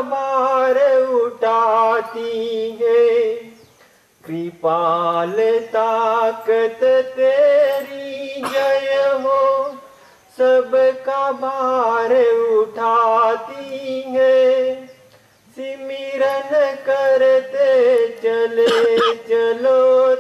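A voice singing a bhajan, a Hindi devotional song, in long drawn-out lines with a wavering pitch and brief pauses between them.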